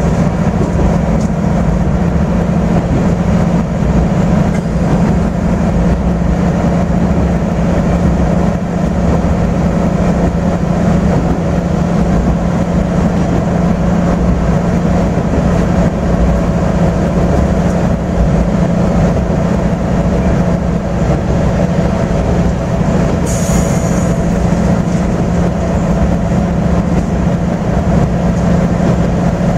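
AN8800 diesel railcar under way, heard from inside the cabin: the diesel engine runs at a steady drone with a constant low hum over the rumble of the wheels on the rails. A brief high hiss comes about 23 seconds in.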